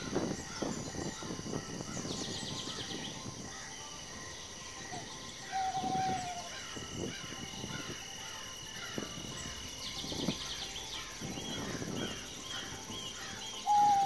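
Birds calling and trilling, with a clear whistled call that falls at its end twice, the louder one at the very end, over soft rustling of footsteps through tall grass.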